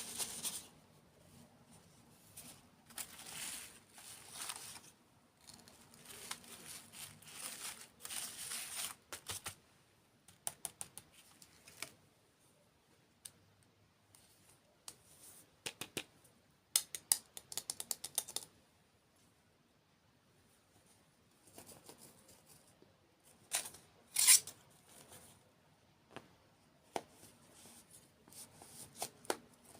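Close-miked ASMR sounds of sweets being handled and eaten: rustling, crinkling bursts, then quick runs of crisp clicks and snaps, with one loud snap past the middle.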